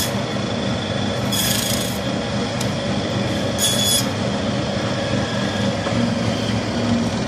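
Electric band saw running with a steady hum, its blade screeching twice as it cuts through a whole hilsa fish, about one and a half seconds and about four seconds in.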